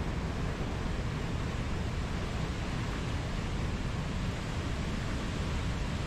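Fast whitewater river rushing steadily over rocks.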